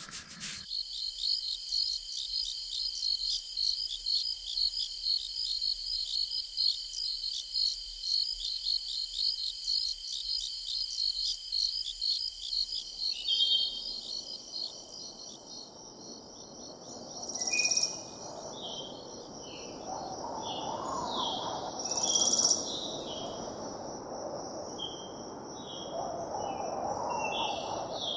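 Crickets chirping in a steady, rapid pulse. About halfway through, birds begin calling with short separate chirps over the insects, while a soft low rushing noise comes up underneath.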